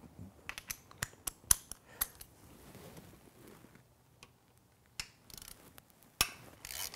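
Scattered sharp metal clicks and clinks of a T50 Torx wrench working on the factory crash bar's lower bolts as they are loosened, most of them in the first two seconds, with a couple of brief scraping sounds near the end.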